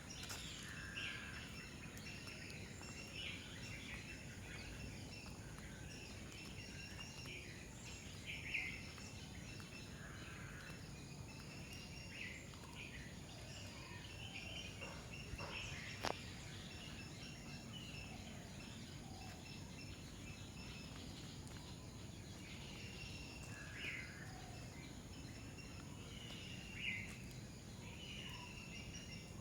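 Birds calling with short chirps and whistles, scattered every second or two, over a steady high insect drone and low background noise. One sharp click about halfway.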